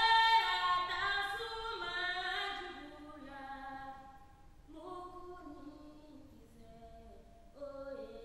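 A woman singing solo without accompaniment: a long phrase that steps down in pitch and fades out, then two quieter phrases, one about five seconds in and one near the end.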